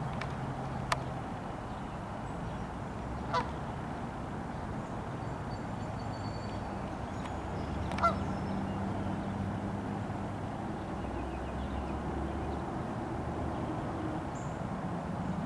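Canada goose giving a few short, single honks, the loudest about eight seconds in, over a steady low background hum.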